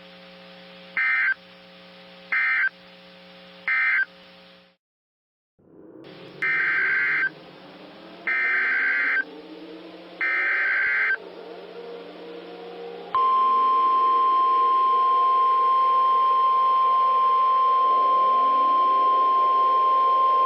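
NOAA Weather Radio emergency alert signalling. First come three short screeching SAME end-of-message data bursts. After a brief dropout come three longer SAME header bursts announcing the next warning. About 13 seconds in, the loud steady weather alert tone starts and holds, with faint rising tones underneath.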